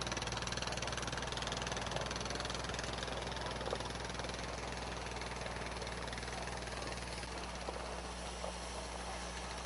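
ATV engine running steadily at low speed, a low hum that weakens a little about seven seconds in.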